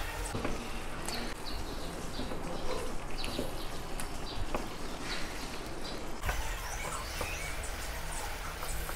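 Chicken cooking in a thick salted-egg sauce, sizzling and bubbling in a frying pan as a wooden spatula stirs it, with short scrapes and taps of the spatula against the pan.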